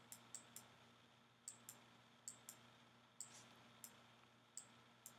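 Faint, irregular clicks of a stylus tip tapping on a pen tablet while handwriting, about a dozen in a few seconds, over a quiet low hum.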